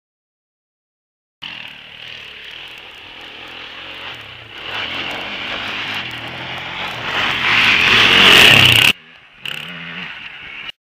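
Sport quad engine revving hard as the ATV races over a dirt track toward the microphone, getting louder to its loudest about eight seconds in. The sound starts after a second or so of silence and breaks off suddenly twice near the end, where the video is cut.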